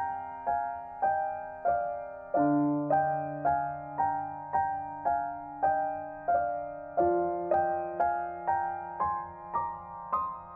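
Slow, gentle piano music: single struck notes about two a second over held low chords that change every few seconds, the melody stepping upward near the end.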